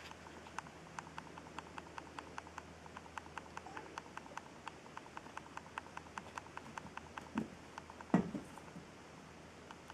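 A kitten's soft thumps on carpet as it pounces at a toy ball: a smaller one at about seven and a half seconds and the loudest just after eight seconds. Under it runs a faint, even ticking of about four to five clicks a second.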